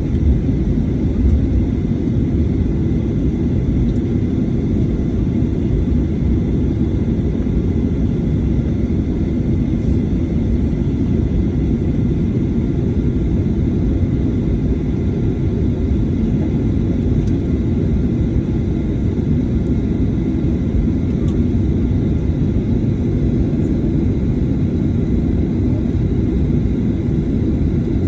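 Steady low cabin rumble inside a Boeing 737-800, its CFM56 engines at idle on the ground before takeoff, with a faint steady high whine above it.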